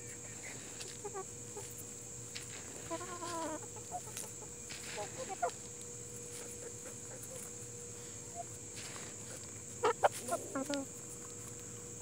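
Barred Plymouth Rock hens clucking softly while foraging, in short scattered calls, with a few louder, sharper clucks close by about ten seconds in.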